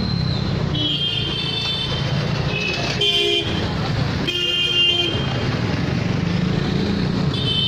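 Vehicle horns honking four times, short blasts about a second in, at three seconds, at four and a half seconds and near the end, over the steady running of a vehicle engine in road traffic.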